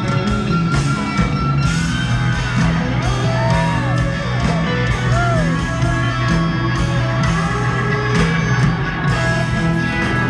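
A rock band playing live in an arena, heard from the crowd. An electric guitar bends notes up and down over a steady bass and drums.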